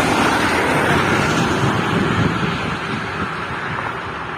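A bus passing at speed on a highway, its tyre and engine noise fading gradually as it moves away.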